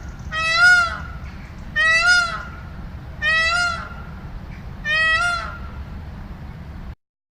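A goose honking four times, each call short and rising then falling in pitch, about a second and a half apart, over a steady low rumble. All sound cuts off abruptly near the end.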